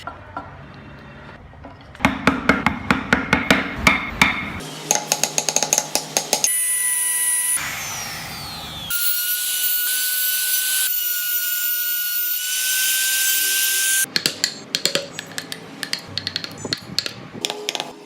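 Woodworking tools on wood: quick runs of tapping and scraping strokes, and in the middle several seconds of a small high-speed power tool whining steadily. The tapping comes back near the end.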